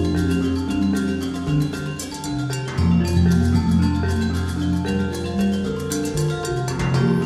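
Background music with held melodic notes over a steady bass and a light beat.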